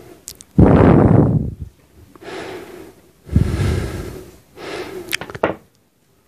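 A man breathing close to the microphone: four breaths, the first and third loudest, with a couple of light clicks in between.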